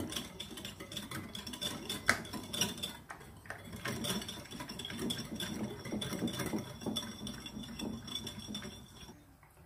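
Small wire whisk beating a wet chili-spice paste in a ceramic bowl: a fast, uneven run of light clicks and scrapes of wire against china that stops about nine seconds in.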